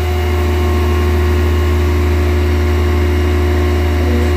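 Tadano GT-600EX truck crane's single diesel engine driving the hydraulic pump through the PTO, holding a steady, loud drone with a steady whine on top while the outrigger beam is pushed out.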